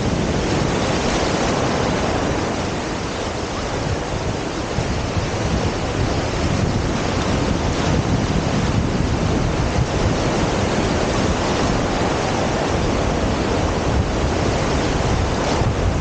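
Small ocean waves breaking and washing up the shore over wet sand, a steady rush of surf, with wind buffeting the microphone.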